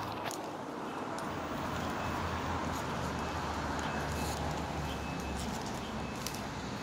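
Street background noise: a steady traffic hiss with a low hum underneath and a few faint ticks.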